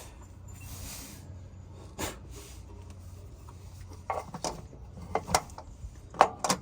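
Scattered light knocks and clinks of handling noise, a handful of them coming mostly in the second half, over a low steady hum.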